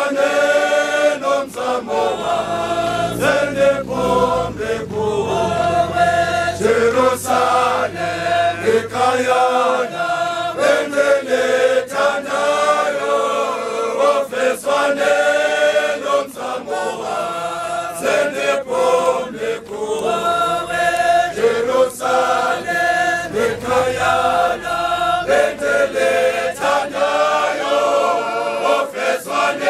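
A large crowd of church marchers, men and women together, singing a hymn in chorus as they walk, a steady chant-like group song with many voices.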